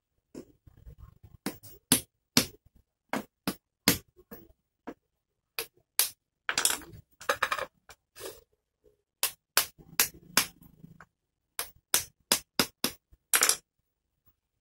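A run of sharp, irregular clicks and knocks, with a short scraping stretch about halfway through, from hand tools and a small air-conditioner indoor fan motor being handled on a tiled floor.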